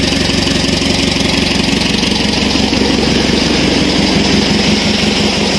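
Isuzu 4HL1 four-cylinder diesel engine idling steadily, running evenly on freshly reconditioned injector nozzles that were fitted to cure its hard starting.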